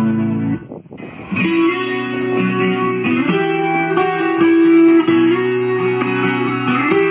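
A guitar-led pop song played loud through a car sound system with the trunk closed; the music drops out briefly just under a second in, then comes back with steady bass and guitar notes.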